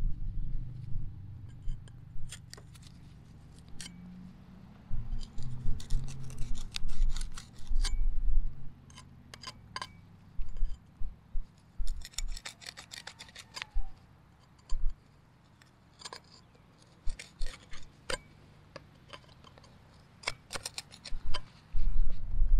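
Clusters of quick sharp clicks and scraping with low thuds, coming and going: handling and digging noises of metal and dirt worked close to the microphone.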